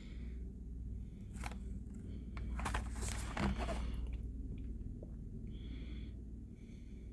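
Handling noise from a diecast toy car in its packaging: a few sharp plastic clicks and crinkles between one and three and a half seconds in, then a couple of soft breaths or sniffs near the end, over a low steady hum.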